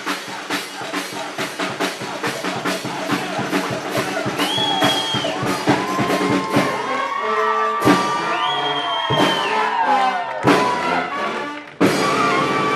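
Street brass band playing, with drums keeping a steady beat of about four strokes a second under the horns. The music changes abruptly near the end.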